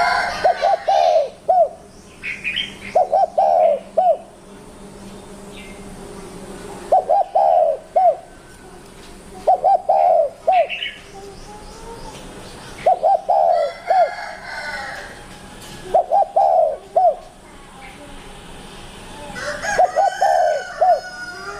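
Spotted dove (tekukur) cooing in short phrases of three or four quick coos, repeated about every three seconds, seven phrases in all. Fainter, higher chirps sound between some phrases.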